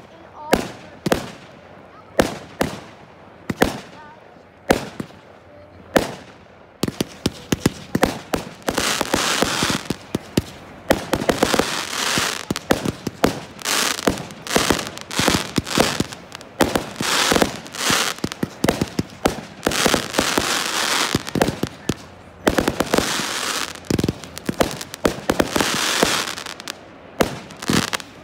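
Fireworks display: aerial shells bursting with sharp bangs about once a second, then from about seven seconds in a dense stretch of rapid popping and crackling as many shells fire together. It thins back to single bangs near the end.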